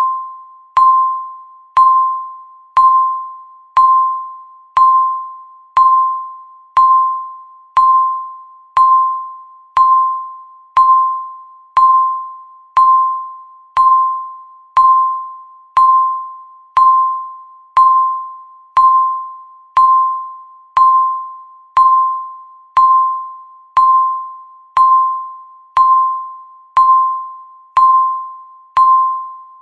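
Countdown timer beep sound effect: a single mid-pitched chime-like tone struck once a second, each starting with a sharp click and fading away before the next, marking off the seconds.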